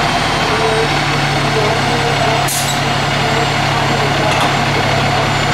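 Fire engine's diesel engine idling steadily, loud and close. About halfway through there is a brief sharp hiss of air from the air brakes.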